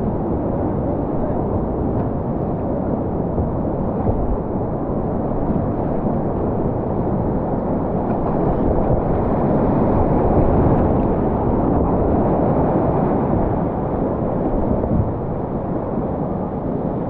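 Rushing whitewater of a river rapid, heard close up from a kayak as it runs through foaming water; a steady loud rush that swells for a few seconds in the middle.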